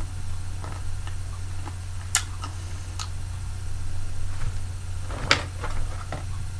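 Close-up eating sounds: scattered sharp clicks and crunches, the loudest about two seconds in and again past five seconds, over a steady low hum.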